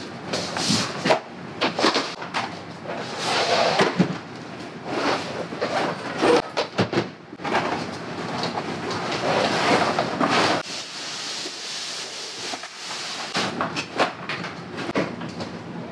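Rustling, scraping and knocking of camping gear being handled and packed by hand: bags, fabric and plastic boxes moved about, with irregular clunks and no steady rhythm.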